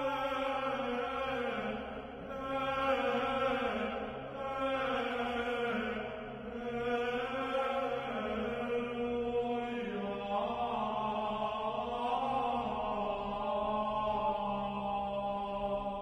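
Slow, chant-like vocal music with long-held, gently gliding notes over a steady low drone, beginning to fade out at the very end.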